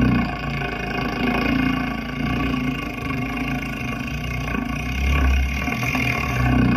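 Low, rumbling growl made in the throat, a beatboxer's vocal imitation of a lion, its pitch stepping up and down every second or so.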